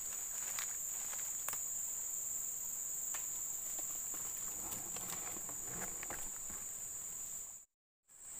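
Steady high-pitched insect chorus droning in tropical riverside woodland, with scattered light footsteps crunching on dry leaf litter. All sound drops out for a moment near the end.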